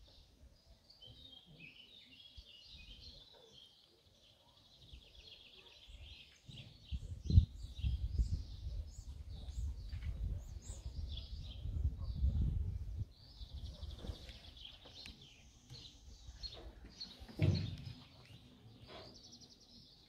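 Small songbirds chirping and trilling in quick, overlapping calls. A low rumble from about a third of the way in to about two thirds, with two sharp low thumps, the louder one during the rumble and another near the end.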